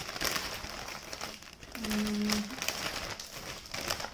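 Plastic snack-cake wrapper crinkling as it is handled and opened, in irregular crackles.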